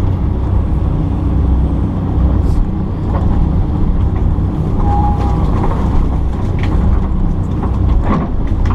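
Kobelco excavator's diesel engine running steadily under work, with a brief higher whine about five seconds in.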